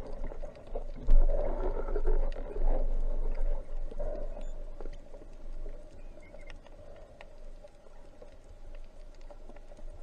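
Muffled underwater noise through a camera housing: low rumbling water movement, louder in the first few seconds and then fading, with scattered faint clicks.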